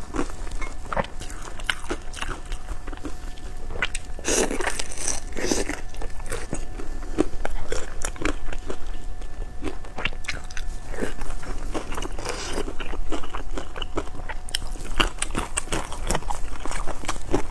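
Close-miked mouth sounds of someone eating pan-fried pork buns (shengjian bao): steady chewing with many short wet clicks and crunches.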